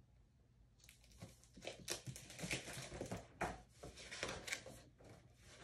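Soft rustling and crinkling of paper as a large picture book is opened on a lap and its pages handled and turned, a string of short crinkles starting about a second in.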